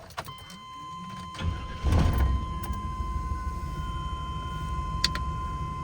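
1998 Chevrolet truck being started: the engine cranks about one and a half seconds in, catches about two seconds in, then settles into a steady idle. A steady high tone sounds through it.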